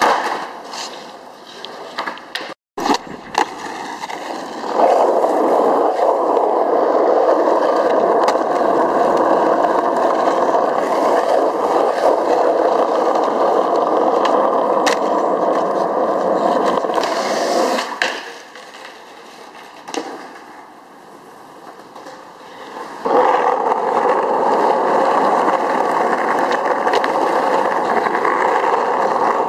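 Skateboard wheels rolling on concrete and asphalt, a steady rushing roll, with sharp clacks of the board popping and landing. The rolling starts abruptly about five seconds in, drops away for a quieter stretch after the middle, and picks up again near the end.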